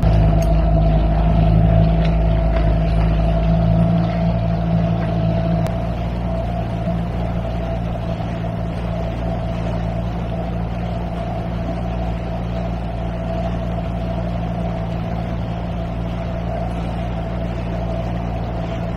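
Outboard engine of a MacGregor 26X sailboat running steadily under way, a constant drone that is a little louder for the first four seconds before settling.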